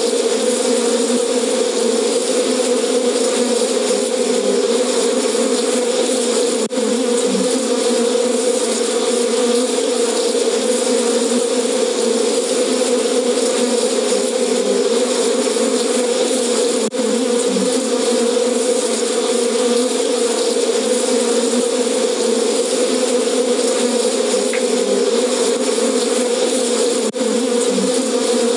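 Recorded buzzing of an angry bee swarm, played as an alarm by an elephant-detection system to drive the elephant away. The buzz is steady and dense, with a brief dip about every ten seconds.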